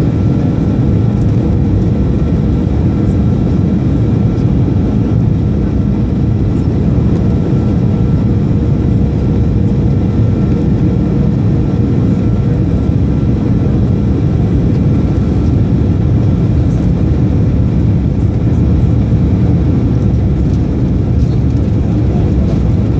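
Steady roar of a Boeing 737-300's CFM56 jet engines and airflow, heard inside the cabin on final approach, with a faint steady whine.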